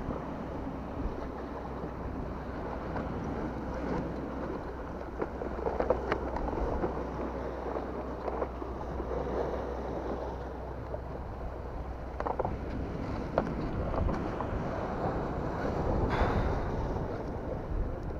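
Wind buffeting the microphone over the wash of sea waves, with a few short knocks and clicks.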